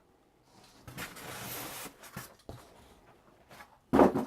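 Packaging rustling as bench drill parts are unpacked, then a single loud knock near the end as something is set down.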